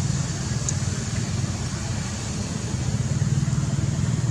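Steady low hum of an engine running at idle, with a fast, even pulse.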